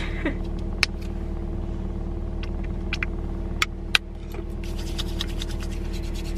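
Steady low hum of a car idling, heard from inside the cabin. Over it come a few sharp clicks from a hand-sanitizer bottle. From about four and a half seconds in there is a quick, even rubbing of hands working in sanitizer.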